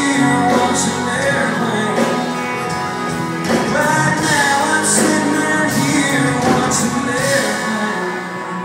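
Live band playing a country song in a large hall, with a singer over electric guitars, keyboard and drums and bright cymbal-like crashes now and then. The music eases off a little near the end.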